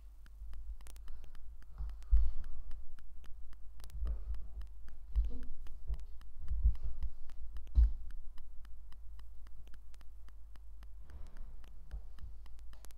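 Lego bricks being handled and pressed together: scattered small clicks mixed with dull low thumps, the loudest about two and eight seconds in.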